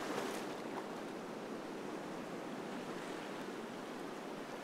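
Steady wash of ocean surf breaking on a sandy beach.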